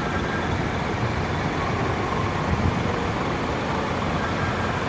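Steady low rumble of road traffic and tour-bus engines.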